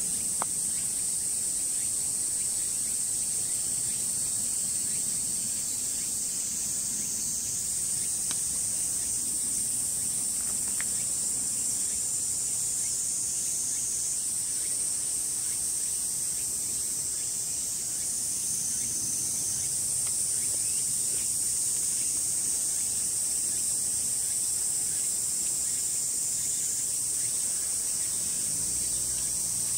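A steady, high-pitched chorus of summer insects, shrilling without a break.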